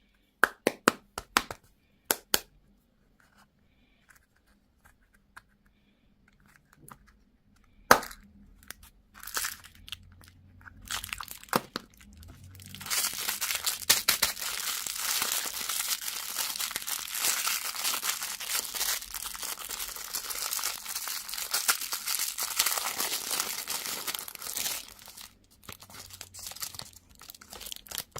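A handful of sharp clicks and taps in the first few seconds and one more about eight seconds in, then about twelve seconds of steady crinkling and tearing of candy wrapping.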